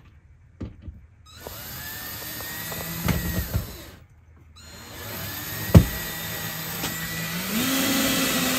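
Cordless drill running into the wall in two long runs, each winding up in pitch as it starts. There is a sharp knock near the end of the first run and another partway through the second.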